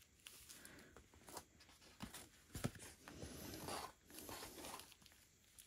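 Faint rustling and crinkling of small plastic zip bags of diamond painting drills being handled and set down, with a few soft clicks.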